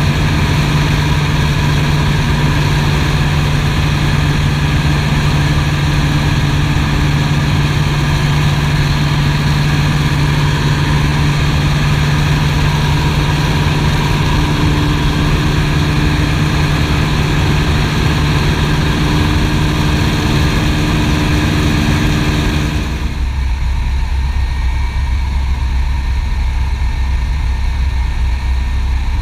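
Piper PA-18 Super Cub's engine and propeller running steadily in flight, heard inside the cockpit. Near the end the sound changes suddenly to a deeper, quieter drone as the aircraft comes in for a touch-and-go on the water.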